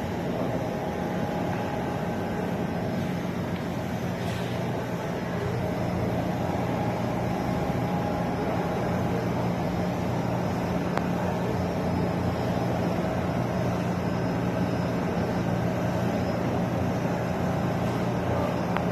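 Steady engine hum with a low drone and a fainter higher tone, unbroken throughout.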